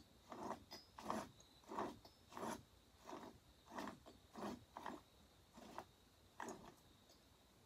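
Stihl 044 chainsaw engine's crankshaft being turned over by hand, a short rough mechanical noise with each turn, about ten in a row at roughly one and a half a second, stopping shortly before the end. The slight roughness is taken for junk in the main bearings, one of them a little worn.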